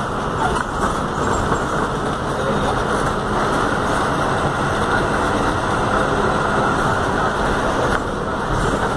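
Volkswagen 17-230 OD city bus in motion, heard from inside the cabin: its diesel engine runs steadily under the road noise.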